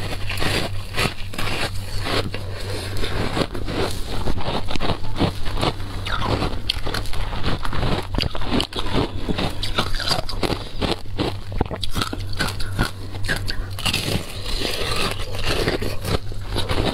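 Crisp, rapid crunching as a block of compressed shaved ice soaked in passion fruit juice is bitten and chewed close to the microphone, with a steady low hum underneath.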